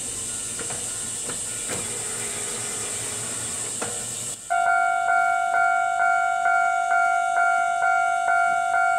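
Steady high hiss with a few faint clicks. About four and a half seconds in, a Japanese railway level-crossing alarm suddenly starts ringing, its two-tone electronic ding repeating about twice a second: the signal that a train is approaching the crossing.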